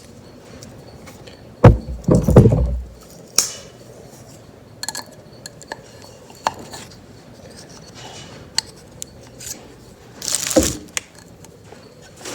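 Metal tools and parts being handled and set down: scattered clinks and knocks, with a loud clattering cluster about two seconds in and another clunk near the end.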